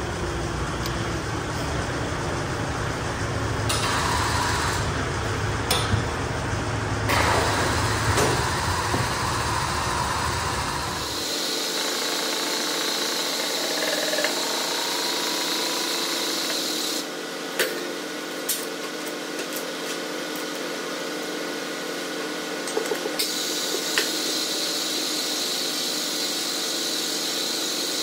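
Hydraulic pump running steadily, driving a hollow-ram cylinder that presses a bushing into an excavator link's bore. About eleven seconds in the deep rumble drops away and a higher, hissier running sound carries on, with a few light clicks later.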